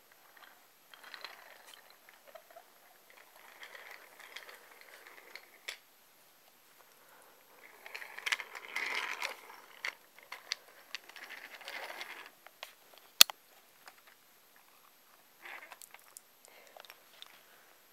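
Wooden toy train rolling and rattling along wooden track in three spells, with one sharp click about 13 seconds in.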